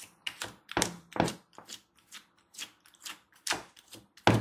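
Fingers poking and squishing fluffy shaving-cream slime in a plastic bowl: a quick, irregular series of short squishes, about two or three a second.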